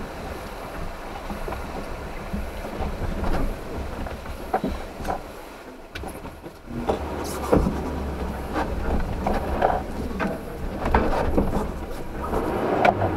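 Suzuki Jimny crawling over a rocky off-road track, heard from inside the cabin: a low, steady engine rumble with frequent irregular knocks and clunks from the body and suspension as the wheels ride over the rocks.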